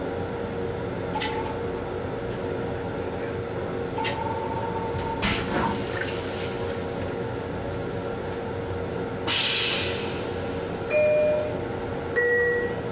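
M7 railcar toilet flushing: water hisses into the stainless-steel bowl for about two seconds, then again briefly a few seconds later, over a steady train hum. Two short tones sound near the end, the second lower than the first.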